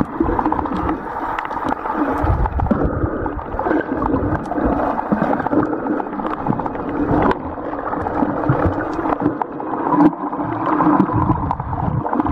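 Muffled gurgling and sloshing of water heard underwater, rising and falling unevenly with small crackles through it.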